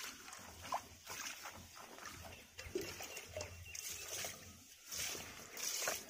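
Water poured from a mug splashing over the mesh of an air-conditioner filter and onto the ground in uneven surges, as a hand rubs the wet filter to wash the dust out.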